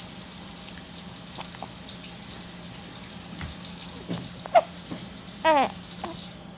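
A young child hiccuping, one short sharp hiccup about four and a half seconds in, followed about a second later by a brief vocal sound that falls in pitch. Under it runs a steady hiss of running water.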